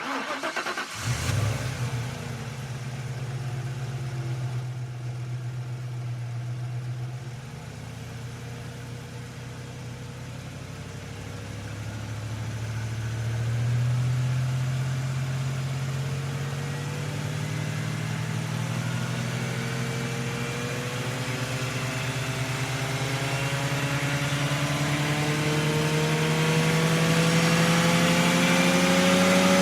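V8 car engine. It comes in suddenly about a second in with a brief rev, then runs steadily and settles lower around seven seconds in. After that it climbs slowly and steadily in pitch and loudness to the end.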